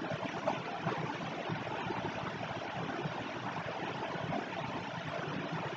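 Steady background hiss from the recording microphone, with a faint click about half a second in.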